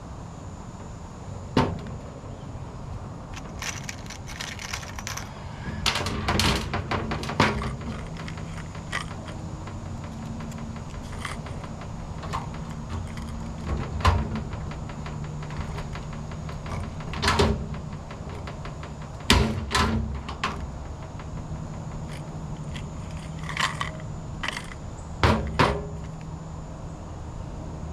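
Shop work sounds: scattered knocks, clanks and short clatters of metal parts being handled, some in quick runs of several, over a steady low hum.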